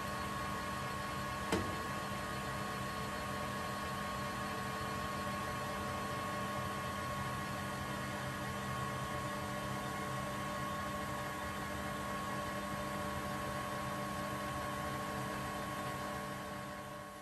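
Metal lathe running steadily while taking a facing cut across a large metal plate with a carbide insert tool: a steady machine hum with several held tones. There is a single click about one and a half seconds in, and the sound fades out near the end.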